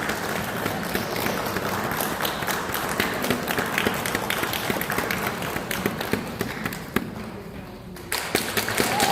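Audience applause, a dense patter of clapping that thins out near the end and then picks up again suddenly about eight seconds in.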